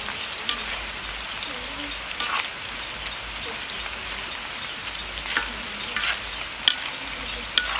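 Banana slices deep-frying in a wok of hot oil: a steady sizzle, with about six sharp clicks as the slices are stirred with a utensil.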